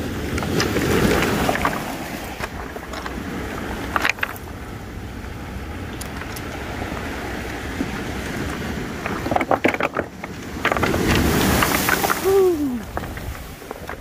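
Wind rumbling on the microphone and waves washing over a stony beach, with rubber boots knocking the cobbles underfoot a few times.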